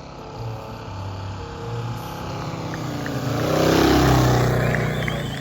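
Bücker Jungmeister's radial engine passing low and close: the engine note grows to its loudest about four seconds in, then fades as the biplane passes and moves away.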